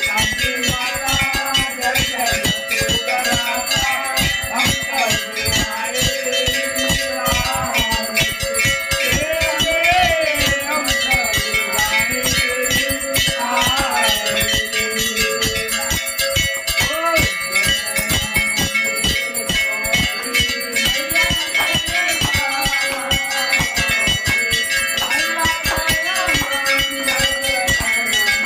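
Temple bells rung rapidly and without pause during the aarti, a steady stream of fast strikes over a sustained ringing tone.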